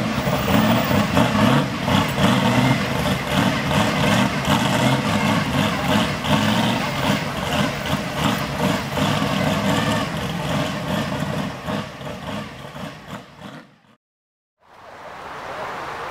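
Car engine running at idle, loud and rumbling, fading away about three-quarters of the way through; after a brief break in the sound, a quieter even background noise.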